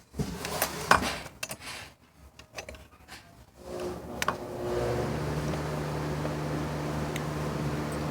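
Small plastic parts of a toy excavator clicking and knocking as they are handled and fitted, then about four seconds in a steady mechanical hum starts and keeps on.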